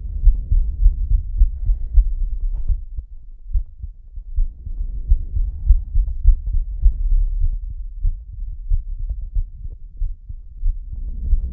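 A heartbeat recorded close up: deep low thumps coming quickly, over a second or so apart at most. Heavy breathing swells and fades over it in slow waves.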